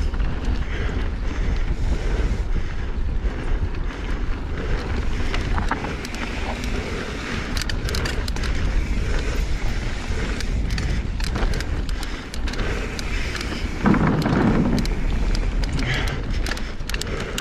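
Mountain bike riding fast down a dirt singletrack: wind buffeting the bike-mounted camera's microphone over the sound of the knobby tyres on the dirt, with scattered clicks and rattles over bumps and stones. A louder burst of noise about three-quarters of the way through.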